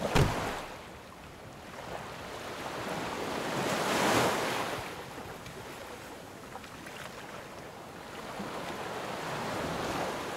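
Ocean surf washing in, one wave swelling to its loudest about four seconds in and another building near the end, with some wind. A short thump right at the start.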